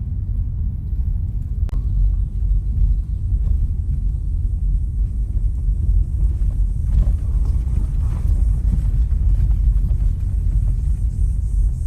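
Steady low rumble of a vehicle on the move, with a single sharp click about two seconds in.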